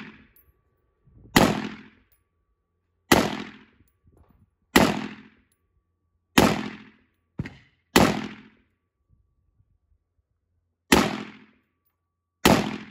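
AR pistol in 5.56 fired single shots at a slow pace, about eight in all, spaced one to three seconds apart, each a sharp crack with a short ringing tail.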